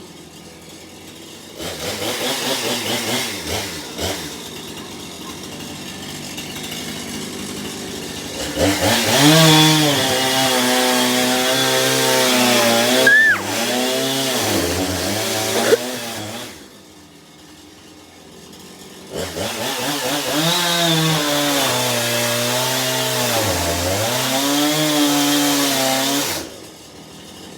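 Chainsaw cutting through a couch, its engine revving up and down under load in two long high-revving runs, dropping back to a low idle between them and near the end.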